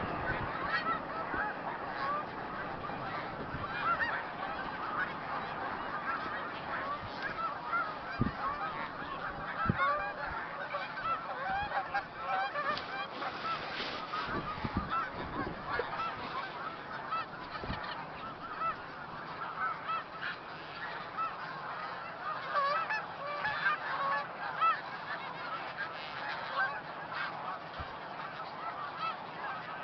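Large flock of snow geese calling continuously, a dense chorus of many short overlapping calls with no pause.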